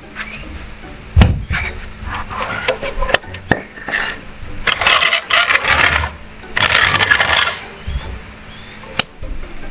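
Knocking and scraping from a car's fuel tank being worked loose and lowered by hand: one heavy thump about a second in, a few sharp clicks later, and two stretches of rough scraping in the middle.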